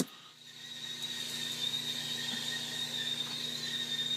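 Stovetop tea kettle whistling at the boil with a steady high whistle, which swells up over the first second and then holds.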